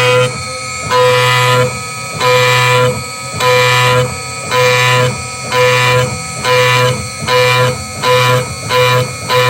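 DIY CNC spindle with an end mill cutting a pocket along a trochoidal path. The cutting tone swells each time the cutter bites into the material on its loop, then drops to a lighter hiss as it swings clear. This repeats about once a second and quickens near the end.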